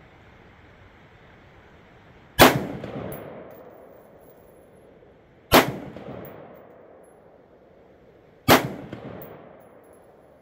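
Three rifle shots about three seconds apart, each a sharp crack followed by an echo that fades over about a second and a half.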